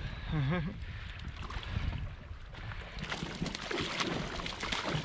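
Wind buffeting the microphone on an open bass boat, a steady uneven rumble, with a short warbling sound about half a second in and a patter of small clicks in the second half.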